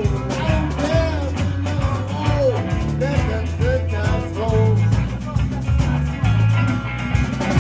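Live blues band jamming: a lead guitar plays a string of bending notes over bass and drums.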